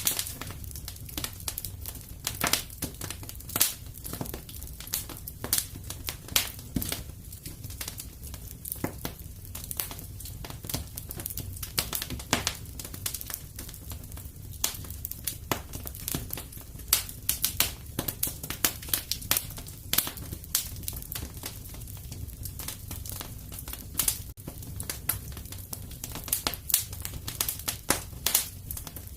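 Wood fire burning in a fireplace: a steady low rumble of flame with irregular sharp crackles and pops, several a second.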